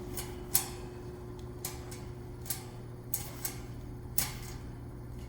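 Vintage 1960s Eskimo two-speed box fan's electric motor humming steadily on its high setting, with sharp clicks at irregular intervals, about six in all. The fan is slightly seized.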